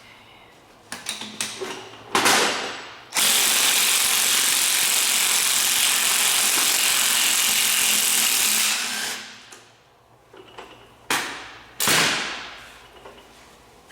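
Pneumatic tool running in one steady, even hiss for about six seconds, between sharp metal clanks: a loud one just before it starts and two more a couple of seconds after it stops.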